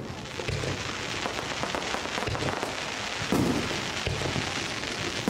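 Aerial fireworks going off in quick succession: a dense, steady crackling with low booms about once a second, the loudest about three seconds in.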